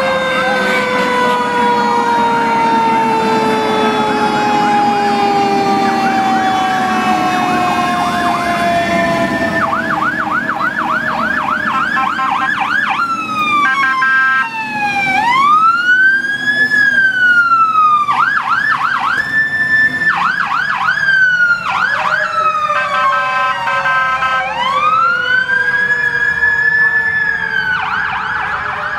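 Fire truck sirens: a long tone winds slowly down through the first half, then an electronic siren switches between a fast yelp and a slower rising-and-falling wail.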